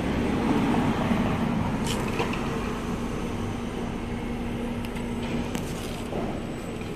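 Steady mechanical hum and hiss, like air conditioning or a fan, with a held low tone that fades out about five and a half seconds in and a few faint ticks.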